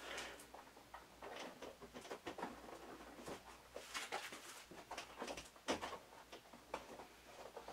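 Faint, irregular small clicks and scrapes of screws being driven by hand to fix a harpsichord keyboard in place.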